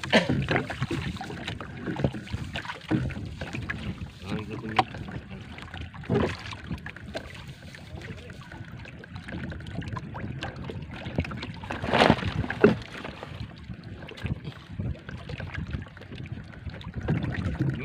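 Sea water lapping and sloshing against the hull of a small drifting boat, with wind on the microphone. A few knocks come through, the loudest about twelve seconds in.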